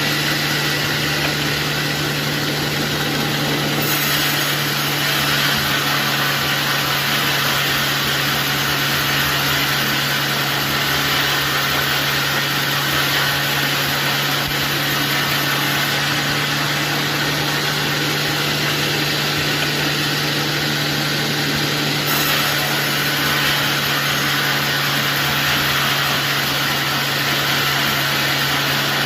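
Sawmill machinery running: a steady motor hum under a constant hiss, which grows brighter about four seconds in and changes again around twenty-two seconds.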